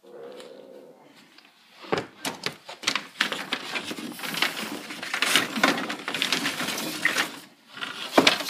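Wooden boards and sticks clattering and knocking together as a hand rummages through a stack of lumber leaning against a wall. The knocks come thick and irregular from about two seconds in, with a louder knock near the end.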